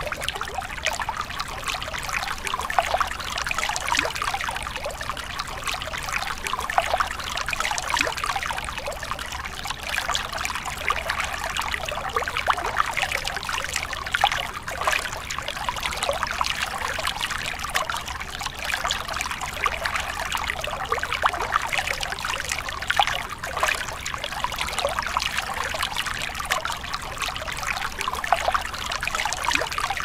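Steady rush of running, splashing water, an even hiss thick with small splashes.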